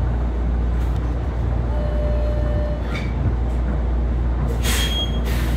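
City transit bus heard from on board: a steady low engine drone and road rumble, with a click about halfway through and two short hisses near the end.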